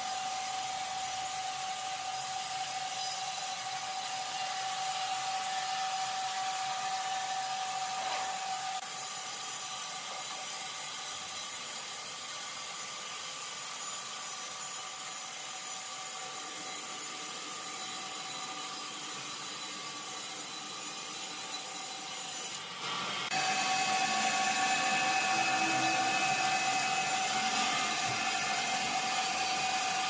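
Horizontal band sawmill blade cutting lengthwise through a large squared log: a steady hiss of the blade in the wood over a constant whine. About three-quarters of the way through it breaks off briefly and comes back louder.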